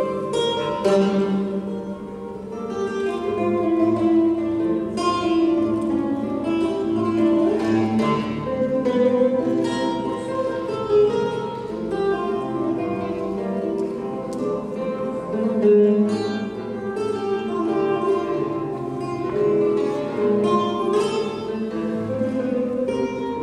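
Solo guitar playing a continuous piece of plucked notes and chords.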